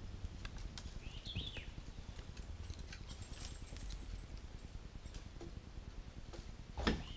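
Scattered light knocks and clicks from an angler moving and handling gear on a boat deck, with a louder knock near the end, over a low background rumble. A short bird chirp comes about a second in.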